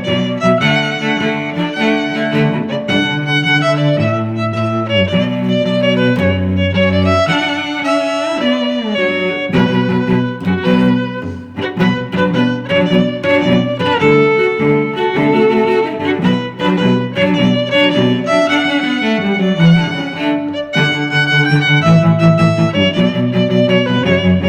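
Instrumental music led by bowed strings, with a higher string melody over lower cello-like notes and some sliding pitches; no singing.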